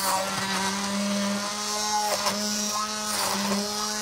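Hand-held immersion blender running in a pot of cooked tomato and pepper sauce, puréeing it. Its motor gives a steady hum that wavers briefly every second or so as the blade takes in chunks of vegetable.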